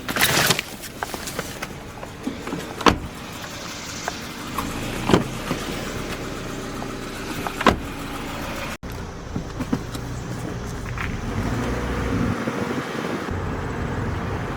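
A car running with a steady rumble, and a few sharp clicks and knocks at intervals.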